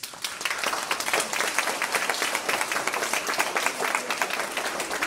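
Audience of schoolchildren and adults applauding, the clapping starting all at once.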